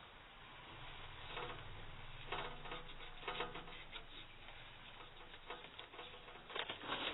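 Hands handling a plastic emergency lamp: scattered light clicks and rustles, with a quick cluster of louder clicks near the end.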